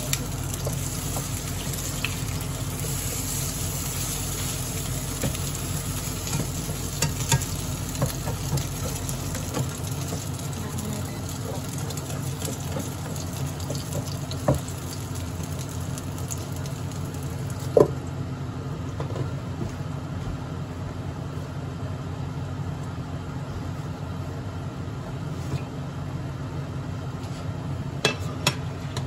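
Hamburger steak patties sizzling in oil in a nonstick frying pan, with a few sharp taps and knocks as a spatula turns them against the pan. Near the end a metal lid clatters onto the pan.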